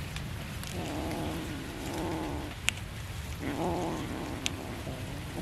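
A cat growls low over its raw fish while eating, in two long spells with a short break just past halfway. Two sharp clicks come during it, the louder one in the break.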